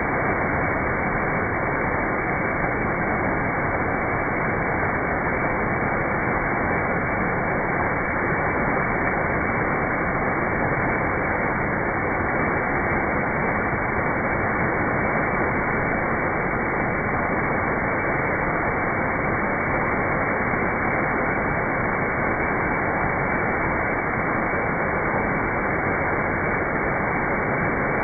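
Steady rushing roar of falling water, muffled, with no treble.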